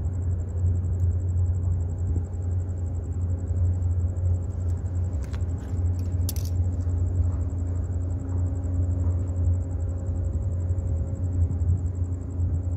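Steady low rumble of a large container ship passing close by under way, with faint steady hum tones above it. A few brief clicks come about five to six seconds in.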